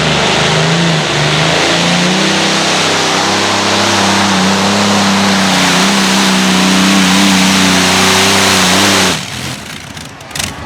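Engine of a competition pulling machine running flat out under the load of the sled. Its pitch climbs over the first couple of seconds, then holds high and steady, and the sound cuts off abruptly about nine seconds in.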